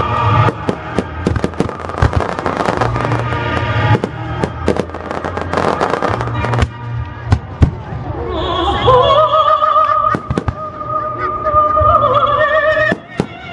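Fireworks going off in rapid bangs and crackles over music. About eight seconds in the bangs thin out and a wavering, vibrato melody line comes to the fore.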